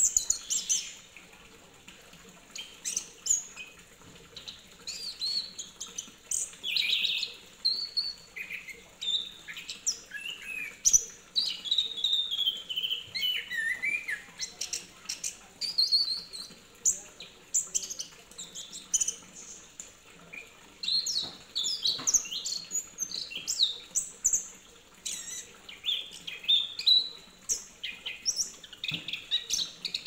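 Orange-headed thrush singing a varied, rambling song of quick chirps and sliding whistled phrases, broken by short pauses.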